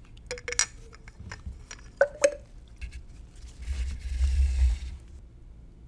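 A grey CPVC plastic piece sliding into a tilted graduated cylinder of water. A few light clicks against the cylinder wall with a short ring, then a sharper double clink about two seconds in as the piece strikes the cylinder. Around four seconds in there is about a second of water splashing and sloshing as the cylinder is stood upright.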